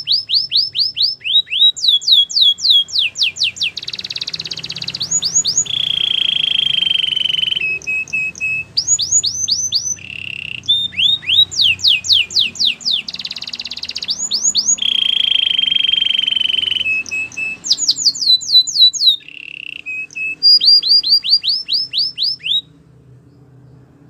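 Canary singing a long run of rapid repeated phrases: quick strings of falling whistled notes alternating with held rolling trills, the song stopping near the end.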